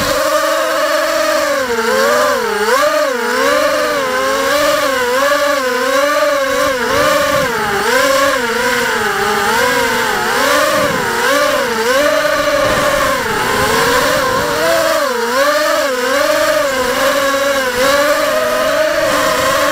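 Multirotor drone's electric motors and propellers whining, the pitch swinging up and down about once a second as the throttle changes.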